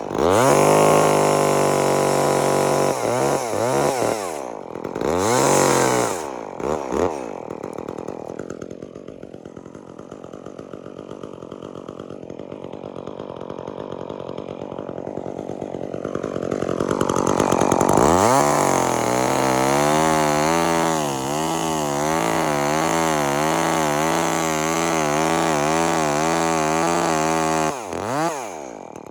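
Chainsaw revved up and down in short bursts, then idling quieter for several seconds in the middle. Around 18 s it revs up again and runs high with a wavering pitch, as when cutting under load, trimming a nub off the dead birch tree, before easing off near the end.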